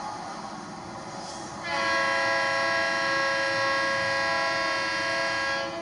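Leslie RS3L three-chime air horn on an approaching diesel locomotive: one long steady blast that starts about a second and a half in and cuts off just before the end, over the low rumble of the train.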